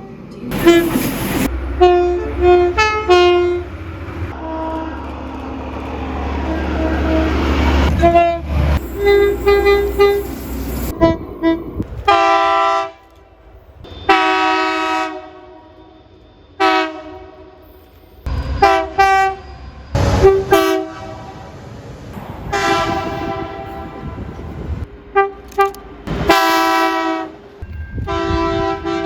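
Train horns from several different Australian trains and locomotives, one clip after another. Each sounds short toots and longer blasts, a chord of several tones at once. A train's low running rumble lies under the horns during the first several seconds.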